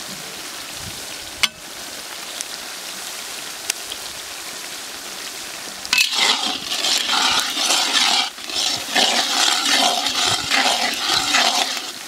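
Chopped onions and green chillies sizzling in hot oil in a wok. About six seconds in, a spatula starts stirring and scraping through them, and the sound becomes louder and choppy.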